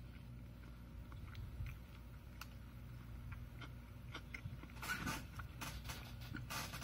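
A person chewing a mouthful of veggie burger close to the microphone: soft wet mouth clicks and smacks, with two short, louder bursts of noise about five seconds in and near the end, over a steady low room hum.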